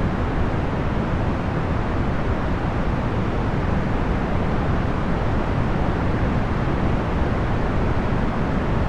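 Box fan noise, procedurally generated rather than recorded: a steady, even rush with most of its weight low and little hiss on top, no hum or rattle.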